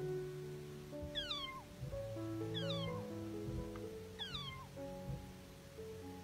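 A cat meow sound effect: three falling meows about a second and a half apart, over light background music.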